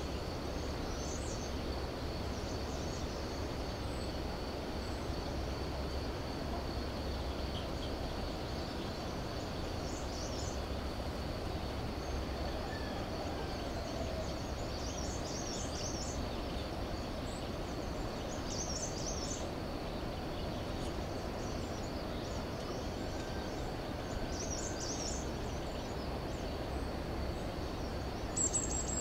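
Outdoor rural ambience: a steady low rumble and hiss with a thin steady high tone, and short high bird chirps every few seconds.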